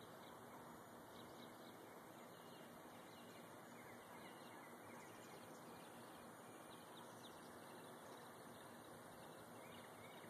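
Near silence: a steady hiss with faint, scattered high chirps from distant small birds.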